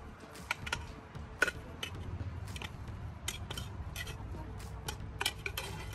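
Metal spoon clinking and scraping against a stainless steel pot as chopped vegetables are scooped out of it into a cooking pot, a string of sharp, irregular clinks.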